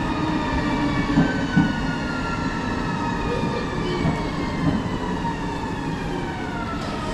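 Train slowing down: several high whining tones fall slowly in pitch over a steady rumble of wheels on the rails.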